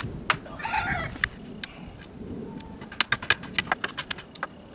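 A chicken gives a short cluck with a falling pitch under a second in. From about three seconds in comes a quick run of sharp wooden clicks and knocks as loose pallet boards are handled; these knocks are the loudest sounds.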